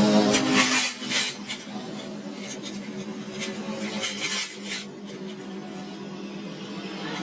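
Metal tools and parts clinking and scraping against metal in a series of short knocks, over a steady low hum.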